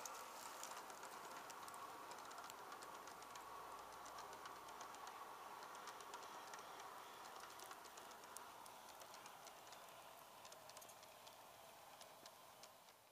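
Wheels of a G-scale model coal train's loaded hopper cars rolling along garden track, faintly, with many small quick clicks over the rail joints. It fades gradually as the last cars and caboose move away near the end.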